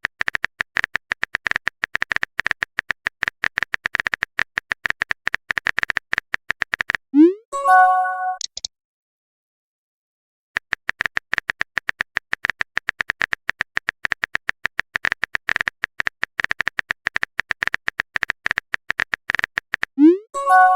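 Rapid clicking of a phone-keyboard typing sound effect. About 7 s in it stops with a short rising swoop and a chime as a text message is sent. After a brief silence the typing clicks resume and end near the close with the same swoop and chime.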